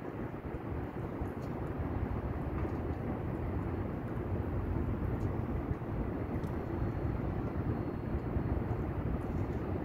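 Steady low rumble of distant city traffic, with a few faint light clicks scattered through it.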